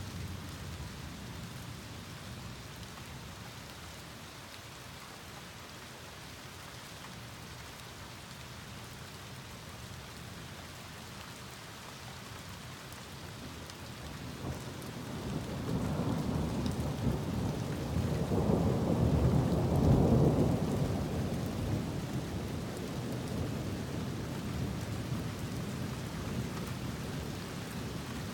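Thunderstorm: steady rain falling, with a long roll of thunder building about halfway through, loudest about two-thirds in, then rumbling away slowly.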